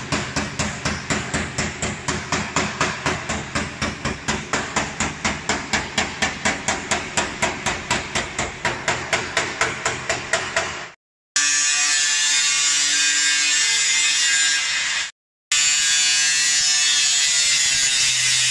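Rapid, even hammering, about five blows a second, for roughly eleven seconds. It is followed by a steady machine whirr in two stretches that start and stop abruptly.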